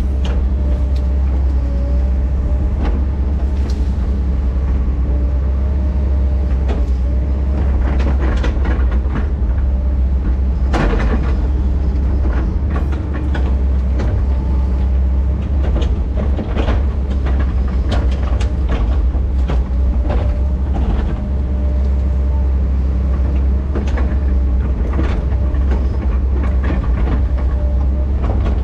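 Heavy equipment's diesel engine running steadily with a deep hum, with scattered knocks and cracks from the machine working brush.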